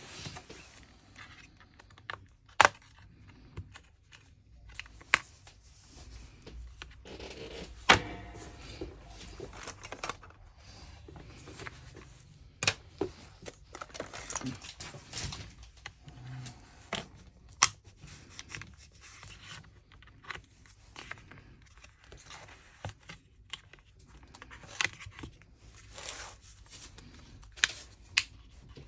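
Irregular sharp clicks, taps and light knocks with scraping and rustling between them: hand tools and loose parts being handled while a laptop is opened up on the bench.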